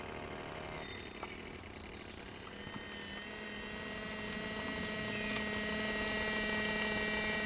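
A steady mechanical hum made of several even tones, which grows louder from about three seconds in.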